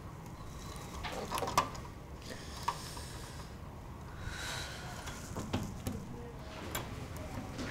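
Scattered metallic clicks and short scrapes of a tool working at a door lock, trying to get the locked door open.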